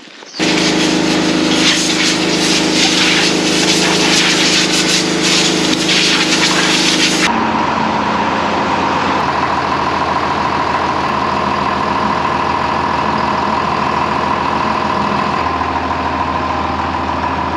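John Deere loader tractor's diesel engine running steadily while it lifts a load on its front forks. About seven seconds in the sound changes and a steady whine comes in, and the low engine note shifts again near the end.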